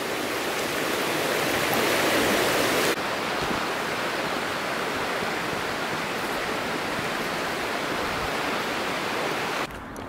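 Mountain stream rushing steadily. About three seconds in, the sound cuts to a somewhat quieter, thinner rush of water.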